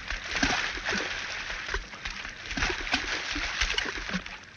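Water splashing and sloshing, irregular and uneven.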